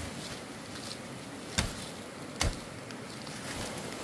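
Cut leafy branches and dry palm-leaf thatch rustling as they are handled and dragged. Two sharp knocks or cracks come about a second apart.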